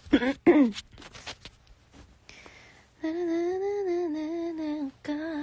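A woman humming a tune with a hoarse throat: a few short sliding notes at the start, then a long, gently wavering held note from about three seconds in.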